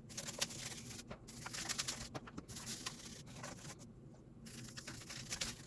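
Toothbrush scrubbing a computer keyboard with soapy water: faint, scratchy bristle strokes in short runs with brief pauses.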